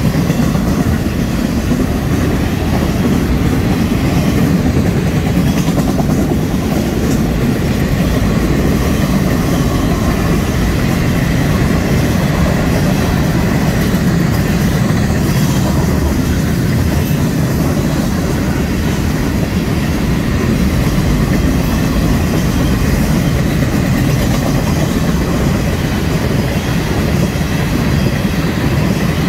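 Florida East Coast Railway freight train rolling past close by at speed: a steady, loud rumble of steel wheels on the rails as autoracks, covered hoppers and tank cars go by.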